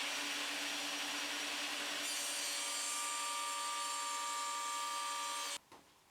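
Mafell Erika table saw running and cutting a 45-degree bevel through resin-coated plywood: a steady sawing sound with a low hum, a higher tone joining about two seconds in. It stops abruptly about half a second before the end.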